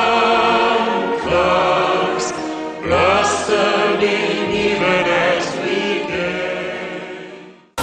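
Background choral music with sustained voices, fading out near the end.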